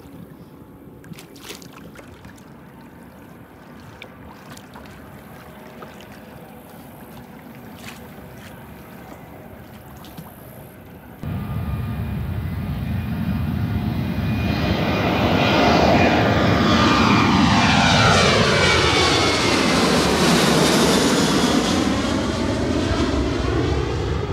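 Water lapping at a kayak with a few light knocks. About eleven seconds in, the loud roar of a twin-engine jet airliner cuts in as it takes off and passes low overhead. It builds to a peak and sweeps with a whooshing that falls and rises in pitch as the plane climbs away.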